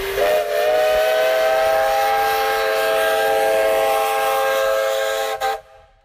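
Steam whistle blowing: a short single note that swells within the first half second into a steady chord of several tones over hissing steam, held for about five seconds and then cut off shortly before the end.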